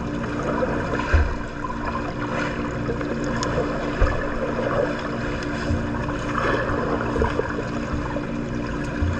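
Water splashing and churning in a swimming pool, over a steady low hum, with a few dull low thumps.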